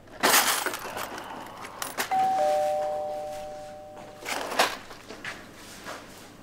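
A clatter, then a two-tone electronic ding-dong chime about two seconds in: a higher note, then a lower one, ringing out together and fading over about two seconds. A few sharp clicks and knocks come near the end.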